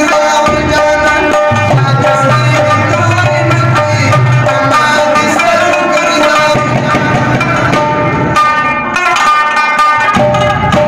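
Pashto folk music: a rubab plucked in a running melody over the rhythm of a mangay clay-pot drum, with a man singing.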